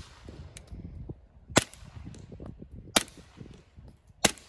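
Three shots from a 9mm pistol fitted with a Microtech Defense Industries R2K9 suppressor, spaced a little over a second apart, each trailed by a short echo off the surroundings.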